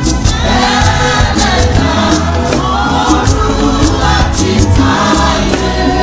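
Church choir and congregation singing a Yoruba hymn together over a steady percussive beat.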